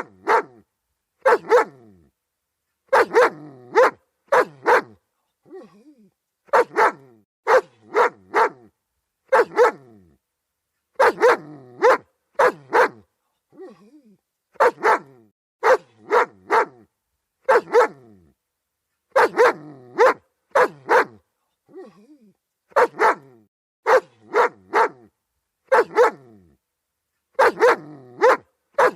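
German Shepherd dog barking repeatedly in quick pairs and triples, the clusters coming every second or two, with fainter barks in between.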